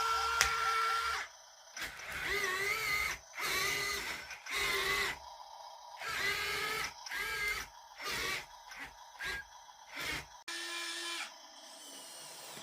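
Small electric motors of 1:50 scale RC construction models whining in about ten short stop-start runs, the pitch wavering as the load changes while the machines are worked.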